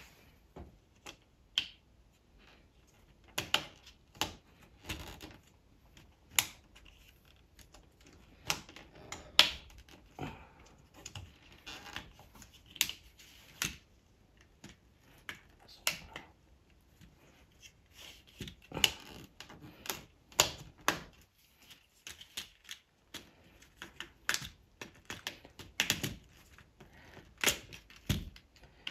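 Plastic Happy Build Technic-style parts clicking and snapping as connector pieces and pins are pressed together and handled: an irregular run of sharp clicks, a few of them much louder.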